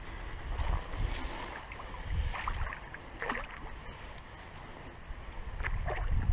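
Wind rumbling on the microphone, with faint rustling and a few soft short sounds scattered through it.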